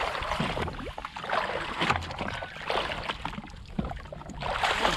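Sea water lapping and splashing against the hull of a drifting jet ski, with scattered small knocks and clicks.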